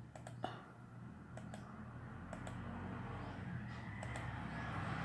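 Computer mouse clicking, a few scattered light clicks over a steady low hum.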